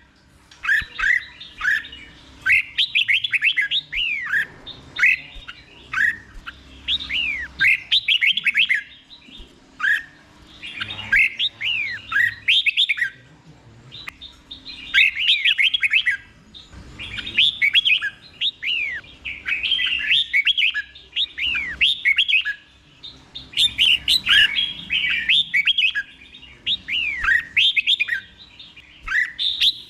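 Red-whiskered bulbul singing the 'double' song style: about a dozen short phrases of quick, clear down-slurred whistles, each phrase a second or two long with brief pauses between.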